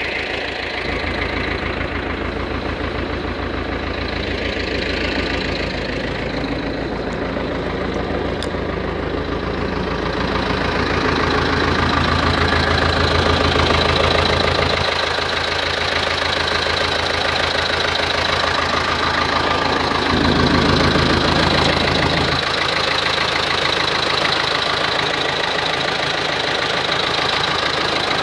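Belarus T-40A tractor's air-cooled four-cylinder D-144 diesel idling steadily while it warms up, its clatter growing louder and closer from about ten seconds in.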